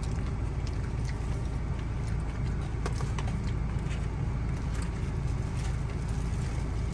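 Steady low rumble heard inside a Peugeot car's cabin, with scattered small clicks and ticks.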